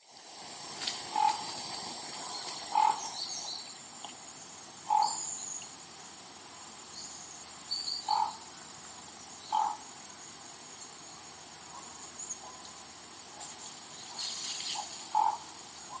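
About six short animal calls, each brief with a pitched core and overtones, spaced irregularly a second to several seconds apart, over a steady high hiss.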